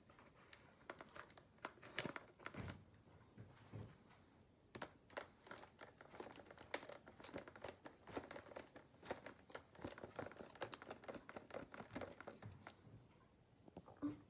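Faint, irregular crinkling and clicking handling noise as a clear plastic Nerf blaster is moved about, with the sharpest click about two seconds in. It dies away shortly before the end.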